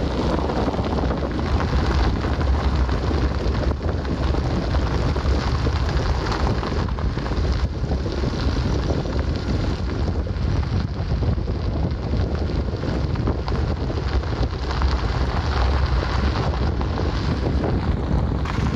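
Heavy, steady wind buffeting on the microphone with a deep rumble, as of a camera held out of a moving vehicle.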